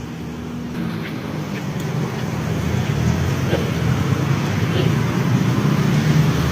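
Motor vehicle engine running with road noise, growing gradually louder.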